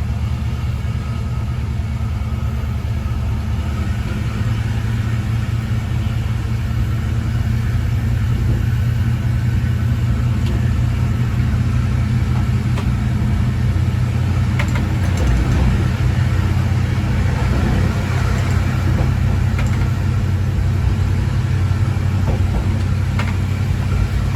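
Former JNR KiHa 20-series diesel railcar KiHa 205, its DMH17-type diesel engine running steadily with a low drone, heard from inside the car. A few faint clicks and knocks come in over the second half.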